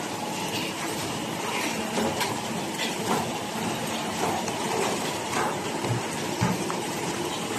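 BK-140A automatic cellophane overwrapping machine running as it wraps decks of playing cards in film: a steady mechanical whir with short clacks about once a second.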